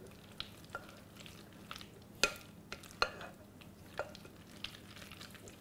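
Spatula stirring mayonnaise-dressed shell macaroni salad in a glass bowl: soft wet mixing with a few sharp clicks of the spatula against the glass, the loudest about two seconds in.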